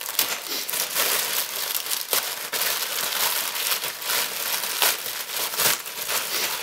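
Grey plastic mailer bag being torn open and crumpled by hand: continuous crinkling broken by irregular sharp crackles.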